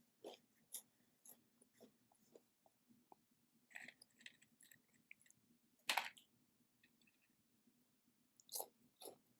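Close-up chewing of crunchy Hot Cheetos: a run of short, irregular crunches, with one louder crunch about six seconds in and another burst of crunching near the end.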